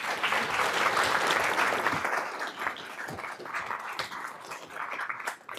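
Audience applauding, strongest over the first two seconds, then thinning out and stopping near the end.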